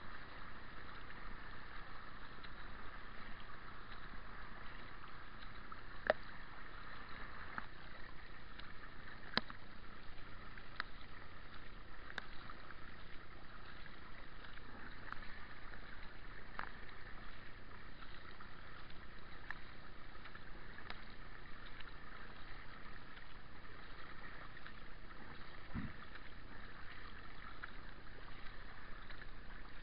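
Kayak being paddled: a steady wash of water noise from the paddle strokes, with scattered light clicks and one low thump near the end.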